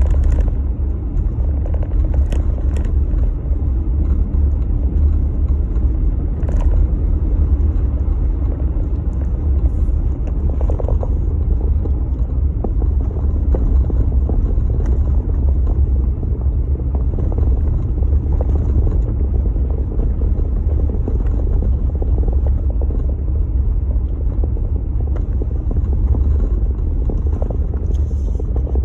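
Jeep Gladiator driving, a steady low rumble of engine and road noise with no change in pace.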